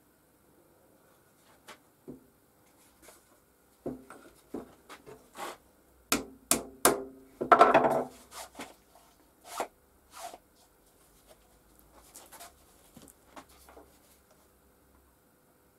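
Small wooden pieces being handled at a workbench: scattered taps and knocks, a quick run of sharp wood-on-wood knocks about six seconds in, then a short rough rubbing scrape around eight seconds in.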